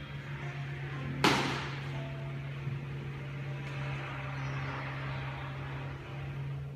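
A single sharp smack about a second in, from an explosive Chen-style tai chi movement, with a brief echo in the room, over a steady low hum.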